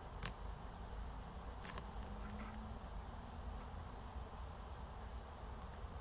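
Great spotted woodpecker tapping its bill on a silver birch log as it feeds: a few sharp taps in the first three seconds. Beneath them is a quiet, steady low background rumble with a faint low buzz that comes and goes.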